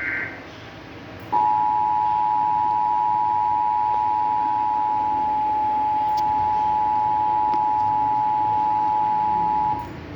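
Emergency Alert System broadcast: the last of the warbling digital header bursts ends just after the start, then about a second later the two-tone EAS attention signal sounds, a steady, piercing dual tone held for about eight and a half seconds before cutting off abruptly. It signals that a tornado warning follows.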